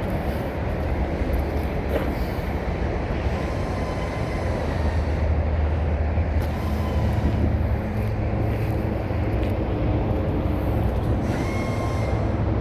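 Large diesel engine running steadily, a deep, even rumble; its pitch steps up slightly about halfway through.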